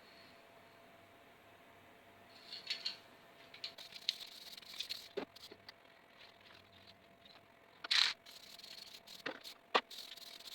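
Faint scattered clicks, taps and rustles of something being handled, with a short louder scrape about eight seconds in, over a faint steady hum.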